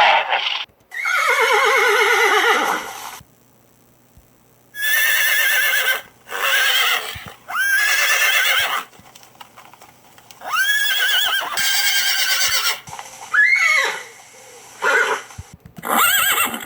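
Plains zebra calling: a series of loud, horse-like whinnying barks. The first call is long and falls in pitch. After a short pause come about eight shorter calls, one every second or so.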